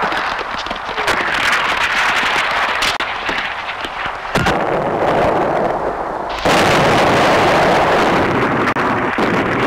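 Film battle sound effects: gunshots and explosions over a noisy din, then a sudden switch to a steady, louder rushing noise about six and a half seconds in.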